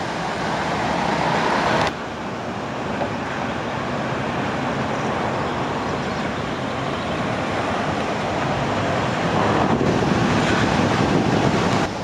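Swift floodwater of a swollen river rushing and churning past a stone mill wall, a steady loud rush. It drops abruptly about two seconds in and grows louder again near ten seconds.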